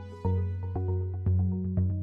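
Electronic background music with a steady beat: a deep bass note about once a second, quicker ticks between, and held synth notes.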